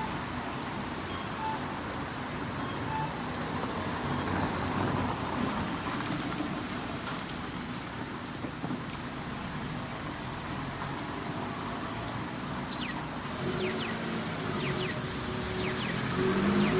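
Road traffic at a crossing, with a pedestrian crossing signal giving short beeps about every second and a half in the first few seconds. Near the end a vehicle's engine hum grows louder as it comes close.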